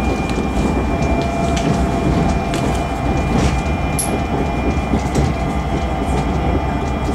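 Commuter train running on the rails: a steady low rumble with a faint held whine and light clicks now and then.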